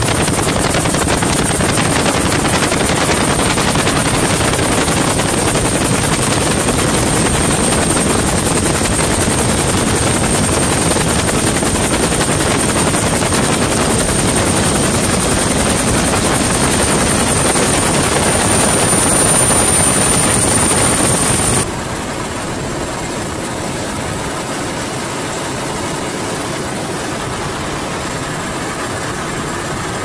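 Helicopter noise heard from on board: a steady, loud rush of rotor and engine with a high whine over it. About two-thirds of the way through it cuts abruptly to a quieter, duller rush.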